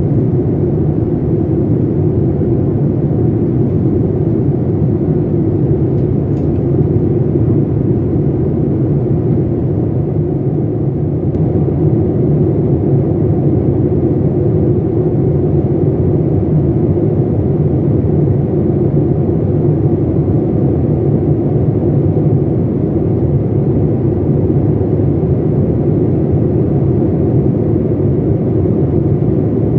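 Steady low rumble inside an airliner cabin in cruise flight: jet engine and airflow noise coming through the fuselage.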